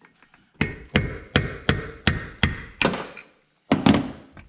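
A run of sharp knocks in a steady rhythm, seven of them at about three a second. After a short pause come two more in quick succession near the end.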